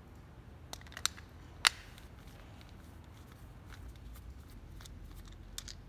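A few short, sharp clicks as small blind parts are handled, the loudest about a second and a half in, with two more near the end.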